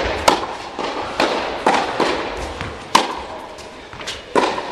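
Tennis ball struck by a racket and bouncing on a hard court: a string of sharp pops at uneven spacing, each ringing out with the echo of an indoor tennis hall.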